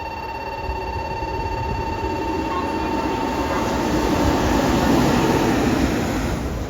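A freight locomotive running light, without a train, passes by. The rumble of its wheels on the rails builds to a peak near the end. A steady high tone sounds alongside and fades out a little over five seconds in.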